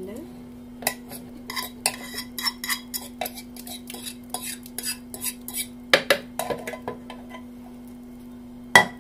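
Plastic blender jar and lid being handled and fitted on the base: a string of irregular clicks and knocks, with a louder knock about six seconds in and the loudest near the end.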